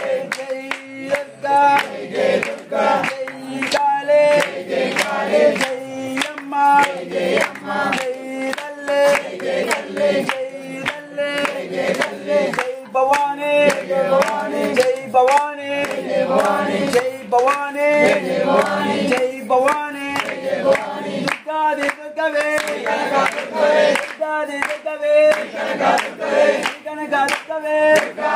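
A group of voices singing a Telugu devotional chant to the goddess together, with regular hand-clapping keeping the beat.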